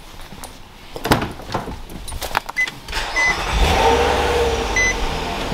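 Knocks and clicks of handling, then a Nissan car's engine cranks and starts about three seconds in and settles into a steady idle. A few short electronic beeps from the dashboard sound around the start.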